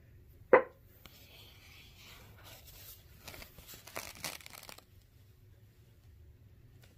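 A sharp tap as a page of a spiral-bound felt book is turned, then a few seconds of rustling and scraping as a green felt flap is lifted off the page.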